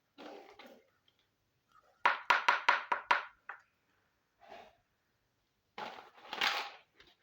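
Plastic miniature toy and its packaging being handled. About two seconds in there is a quick run of sharp scraping strokes, and near the end a longer scratchy rub.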